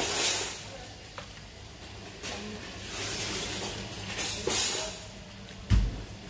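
A metal ladle scooping and pouring soup in an aluminium wok: several spells of splashing liquid, then a dull knock about six seconds in. A steady low hum runs underneath.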